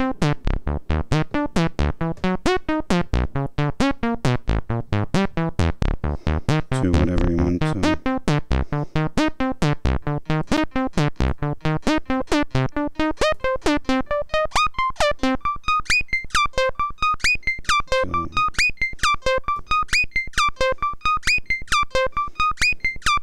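A Reaktor Blocks Base step-sequenced synthesizer playing a fast, repeating run of short notes. The notes shift in pitch about seven seconds in. From about fourteen seconds the low notes drop out and a higher, brighter repeating figure carries on.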